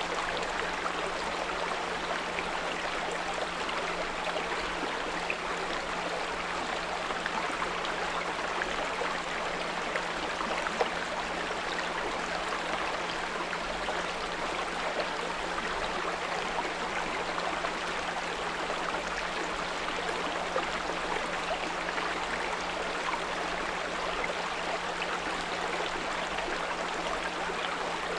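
Small brook babbling steadily over stones, with a steady low 174 Hz pure tone mixed in.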